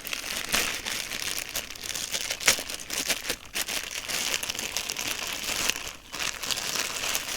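Packaging crinkling and rustling in a series of crackles as a clothing item is handled and unwrapped.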